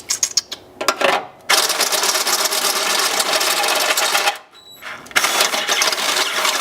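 Power drill with a step drill bit cutting through metal to enlarge a bolt hole. A few short bursts come first, then two longer runs of grinding and cutting with a brief pause just after halfway.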